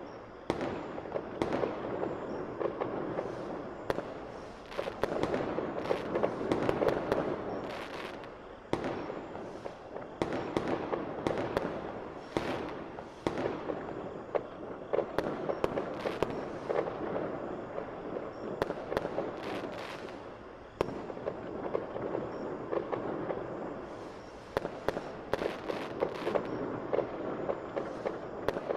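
Fireworks going off continuously: a dense crackle with many sharp snaps and pops, swelling and easing in waves every few seconds.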